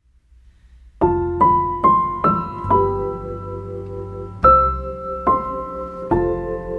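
Background music: after a second of near silence, a short run of single notes climbs upward, then fuller chords follow, each struck note ringing and fading away.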